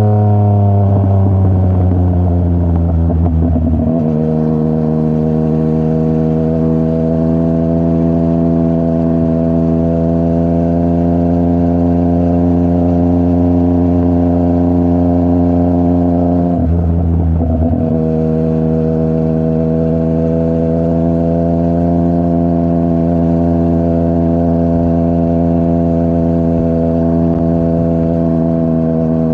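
Yamaha MT-09's CP3 three-cylinder engine running through a full Akrapovic exhaust under riding load. The engine note falls over the first few seconds, then holds steady, with a brief break about 17 seconds in before it settles again.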